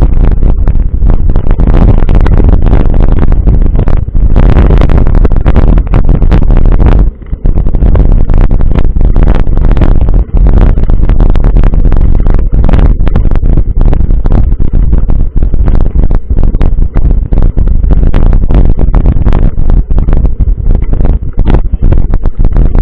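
Loud, low rumble of wind buffeting the microphone of a camera carried on a moving mountain bike, steady apart from a brief drop about seven seconds in.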